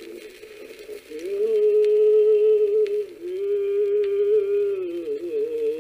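A man's solo voice singing a traditional Passamaquoddy song in long, drawn-out notes.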